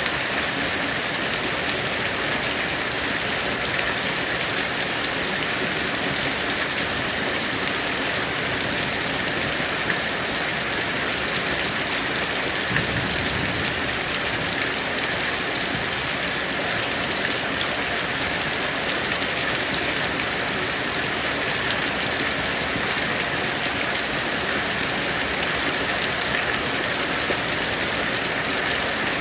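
Heavy rain falling steadily, an even hiss of rain on surfaces, with a brief low rumble about halfway through.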